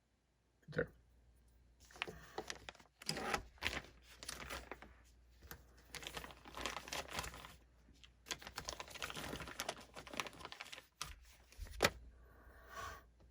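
Close-up rubbing, crinkling and scraping as small knife parts are wiped and cleaned by hand, in irregular bursts, with a sharp click shortly before the end.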